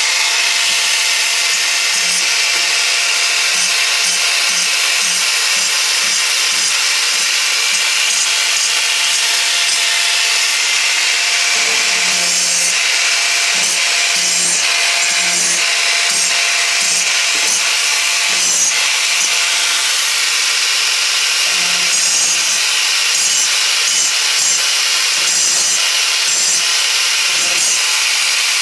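Power grinder grinding down the sharp edges of a metal anvil: a loud, continuous harsh hiss over a steady motor whine.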